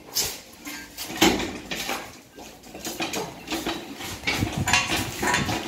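Irregular metal clanks and knocks from tools and steel parts being handled during installation of a monkey crane.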